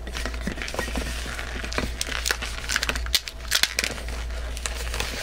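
A red 160 latex modelling balloon being handled and twisted into bubbles: a run of short, sharp rubbing and crinkling noises from the rubber and gloved hands, busiest from halfway through to near the end, over a steady low hum.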